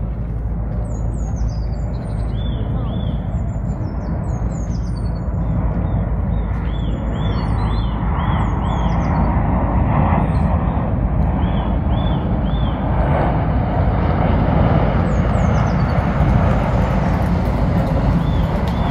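Small birds chirping and singing over a steady low rumble of outdoor background noise. High falling chirps and runs of four or five short arched notes come again and again, while a hiss swells in the middle.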